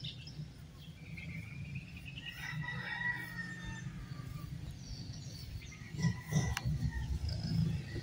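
Birds calling, with a rooster crowing a couple of seconds in, over a steady low rumble; a few louder low thumps come near the end.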